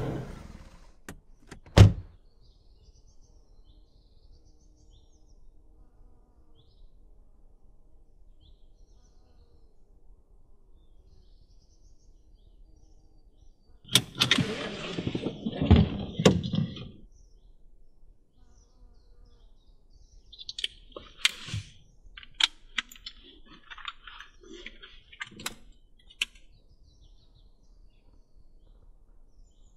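Quiet inside a parked car: a car door shuts with one sharp thud about two seconds in, then rustling and shuffling of someone moving in a seat from about fourteen to seventeen seconds, followed by scattered clicks and rustles of handling. Faint bird chirps come from outside.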